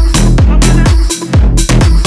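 Electronic dance music with a steady four-on-the-floor kick-drum beat, about four beats a second.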